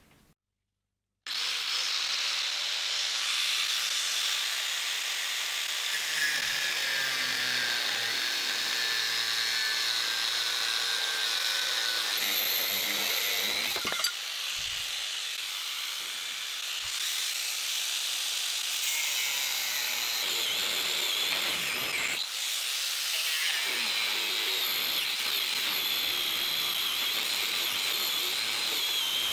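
Angle grinder with a cut-off disc cutting through steel plate: a steady, high grinding whine. It starts about a second in, and it changes briefly about 14 and 22 seconds in.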